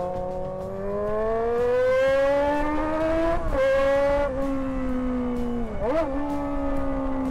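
Small, high-revving motorcycle engine with no silencer, ridden under throttle with a high, Formula-One-like whine. Its pitch climbs over the first three seconds, drops briefly about three and a half seconds in and again near six seconds, then holds steady.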